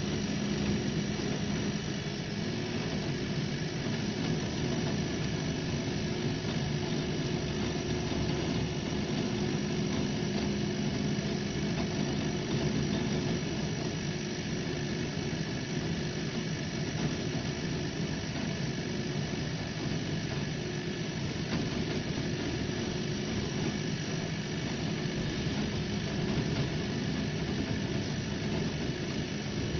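An 80 W laser engraving machine running while engraving plywood: a steady mechanical hum from the machine.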